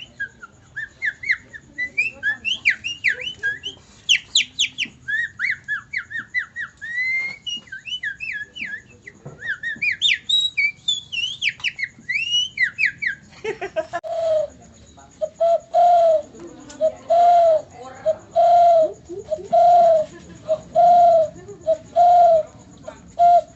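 Man whistling bird-call imitations: rapid high chirps and trills, then, about halfway through, a low coo repeated a little over once a second, like a dove.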